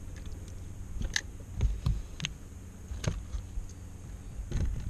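Half a dozen irregular light clicks and knocks, loudest a little under two seconds in, from a caught bass and fishing tackle being handled on a bass boat's deck, over a low steady rumble.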